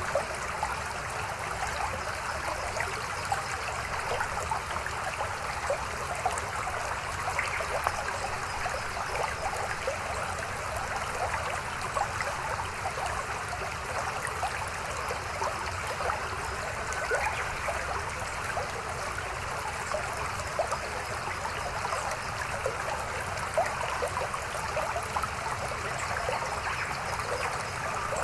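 A mountain stream running over rocks: a steady babbling with many small splashes.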